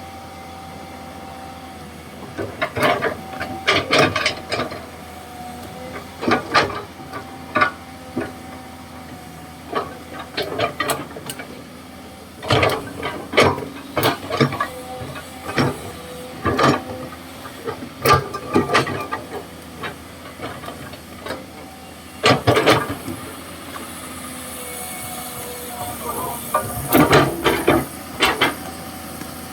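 Komatsu PC200-6 hydraulic excavator working: the engine runs steadily with a faint held whine, broken by many sharp knocks and clanks that come at irregular intervals and in clusters.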